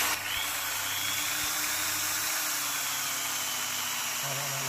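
Makita HP1630 corded hammer drill running steadily at speed, its motor pitch drifting slightly lower.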